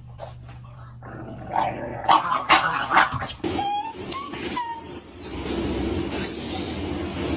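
A dog growling low and steadily, breaking into a few harsh outbursts about two seconds in, then short high whines, then growling again. It is a frightened dog protesting at having its nails cut.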